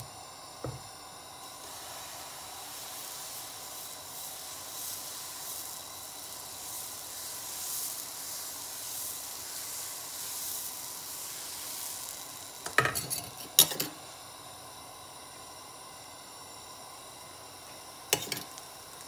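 Dosa batter sizzling on a hot pan as it is ladled on and spread, the hiss strongest in the middle and fading after about twelve seconds. A quick run of metal clinks follows, then a shorter clink near the end, from a spoon or ladle against the pan or oil cup.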